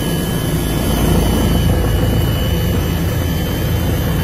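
Helicopter running steadily, heard from inside the cabin: a dense low rumble with a thin steady high whine over it.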